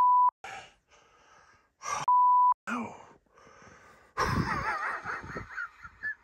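Two short, steady, high beeps of the kind used as censor bleeps, one at the start and one about two seconds in; they are the loudest sounds. About four seconds in comes a louder, rough stretch of nearly two seconds with a wavering whistle-like tone in it.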